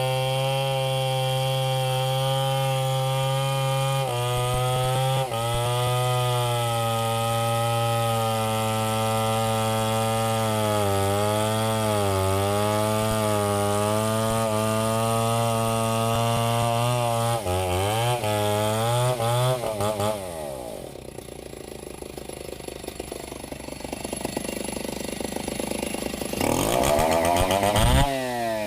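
Chainsaw cutting through a log at full throttle, its pitch dipping and wavering as the chain bites. About two-thirds of the way through it drops to idle for several seconds, then revs up again near the end.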